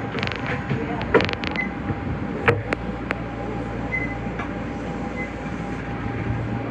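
Nagoya Municipal Subway 5050-series train: a steady low hum, with a run of sharp clicks and clunks in the first two seconds and three louder sharp clicks around two and a half to three seconds in.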